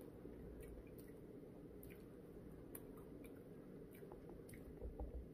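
Faint chewing of a mouthful of soft redskin potatoes, with a few small clicks scattered through it.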